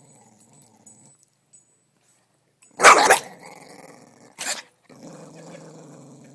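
A dog growling, falling quiet for a moment, then barking twice, sharply and loudly, about three seconds in and a second and a half later, and growling again afterwards.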